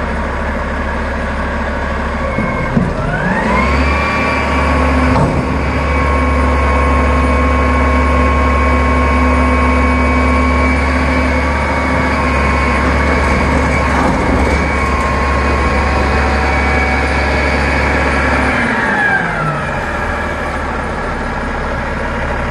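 Automated side-loader garbage truck's engine idling, then rising in pitch about three seconds in and holding a steady higher speed to drive the hydraulic arm and packer, before falling back to idle near the end.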